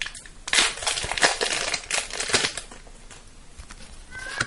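Foil booster-pack wrapper crinkling and tearing open in the hands, in irregular crackly bursts that ease off into softer rustling as the cards come out.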